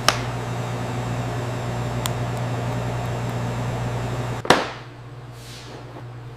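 Steady low hum of factory machinery with a faint click and tick. About four and a half seconds in comes one loud sharp knock, after which the hum continues more quietly.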